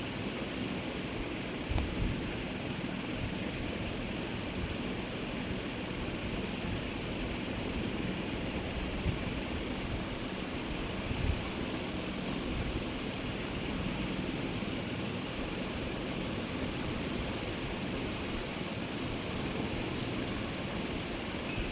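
Steady, even rushing hiss of background noise, with a few faint knocks.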